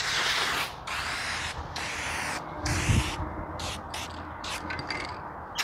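A Rust-Oleum Turbo Can clear coat aerosol hissing in a series of short spray bursts, stronger in the first half. Wind rumbles on the microphone, with a low buffet about three seconds in.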